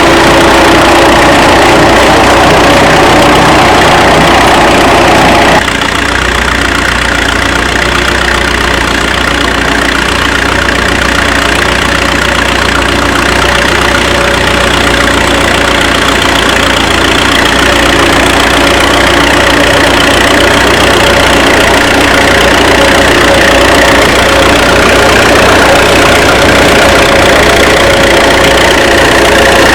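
1935 Fordson tractor's four-cylinder engine running steadily and loudly, dropping slightly in level and tone about five and a half seconds in.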